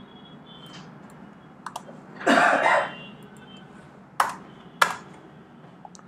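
A person clears their throat once, about two seconds in. Sharp clicks of computer keys come before it, and two louder ones follow about two seconds later.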